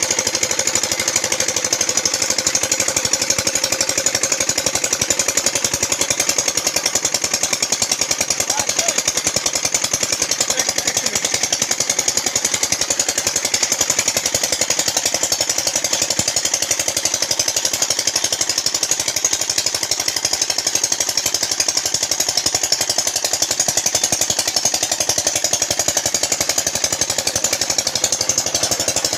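Peter single-cylinder diesel engine running steadily under load, a rapid, even knocking beat, driving a chaff cutter.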